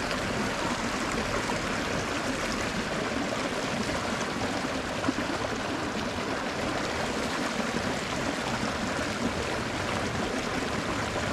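Small spring creek flowing: a steady rush of running water.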